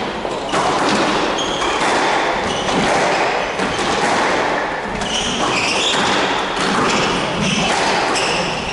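Squash rally: the ball smacking off rackets and the court walls in repeated sharp hits, with shoes squeaking briefly and often on the wooden court floor.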